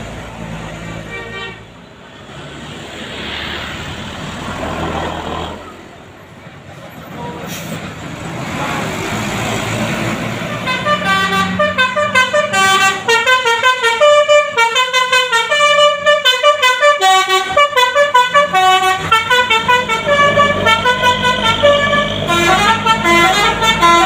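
Buses passing with engine and road noise for about ten seconds, then a multi-tone 'telolet basuri' bus horn playing a fast tune of quickly stepping notes, several a second, over the engine, running on to the end.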